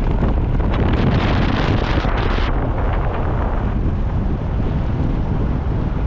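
Wind buffeting the microphone of a camera filmed from a moving car, a loud steady rush with vehicle road noise underneath.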